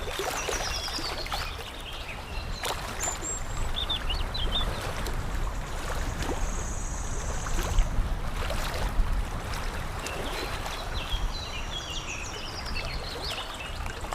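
Water lapping and trickling steadily, with small birds chirping over it: a run of quick falling chirps at the start, a short high trill midway and another burst of chirping near the end.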